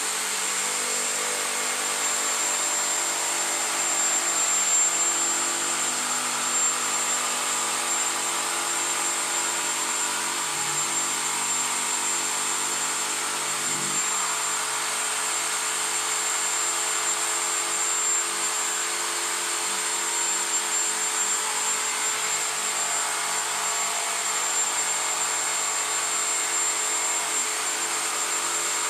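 Jigsaw running without a break as it cuts a curve through a thin template board, a steady mechanical noise with a high, even motor whine.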